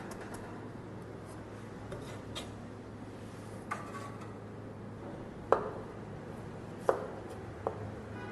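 Kitchen knife chopping on a plastic cutting board: a fast run of chops ends just after the start, then in the second half come a few single sharp knocks, spaced about a second apart, as a tomato is cut.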